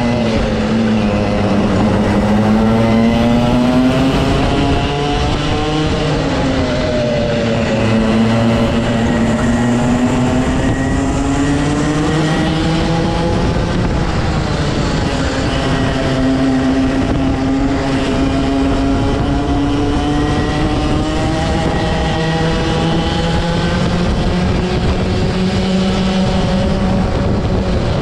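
Rotax two-stroke kart engine at race pace, with no let-up. Its pitch climbs for several seconds at a time and drops back sharply a few times, about six and fourteen seconds in and near the end, as the kart brakes for corners.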